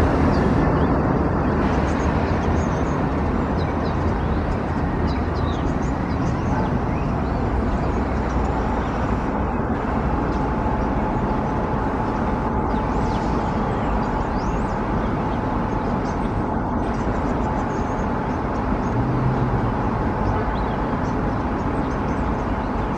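R179 subway train running on elevated track: a steady rumble of wheels on rails and the steel structure. A faint, thin, high steady tone joins it partway through.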